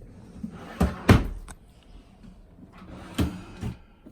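Objects and boxes being handled and moved around on a surface: a few knocks and thumps, the loudest about a second in, with light scraping and rustling between them.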